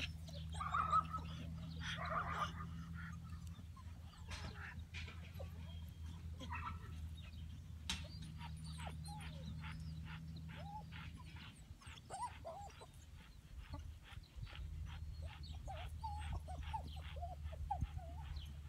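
English pointers whining and yipping, loudest in the first few seconds, over a steady low rumble. From about halfway through, a quick regular run of short sounds, about three a second, continues with a few small whines.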